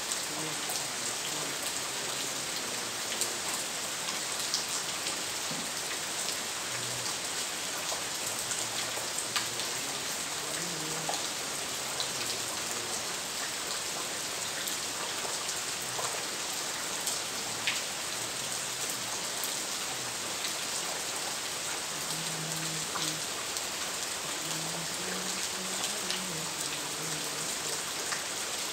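Steady rain falling, an even hiss with the patter of scattered drops.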